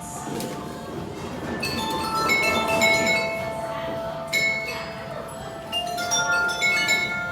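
Bright, bell-like chiming notes ringing out in quick runs, several overlapping and each ringing on briefly, like glassy or metal chimes.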